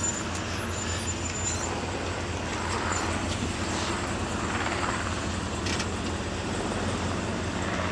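Chevrolet Silverado 3500 HD utility truck idling, a steady low engine hum.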